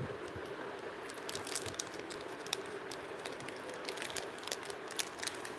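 Faint, scattered crinkles and clicks of clear plastic jewellery packets being handled.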